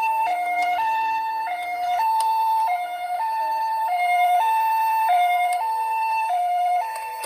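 Toy ambulance's electronic two-tone "pee-po" siren: a high and a lower note swap about every half second, the Japanese ambulance pattern. A sharp click comes at the very end.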